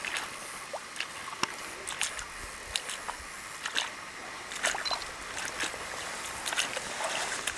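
Shallow water lapping and slapping in small irregular splashes as a large lake trout swims with its back out of the water at the shoreline.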